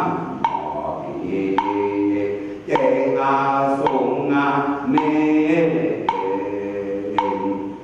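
A group of voices chanting together in held, sliding notes, as in Chinese ritual chanting. A sharp knock about once a second keeps time.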